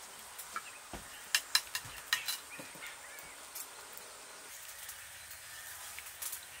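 Boiled quail eggs being peeled by hand over a bowl of water: shells cracking in a quick cluster of sharp little clicks about a second and a half in, with a few fainter clicks later.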